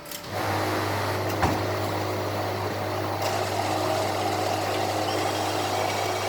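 Bank cheque-sorting (clearing) machine starting up and running with a steady motor hum, a single sharp click about a second and a half in, and higher whining tones joining partway through.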